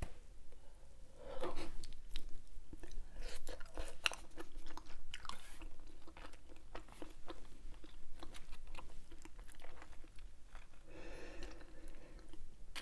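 Close-miked chewing of Hubba Bubba bubble gum: wet smacking with many sharp clicks. About a second in, a deflated bubble is sucked back off the lips with a louder smack.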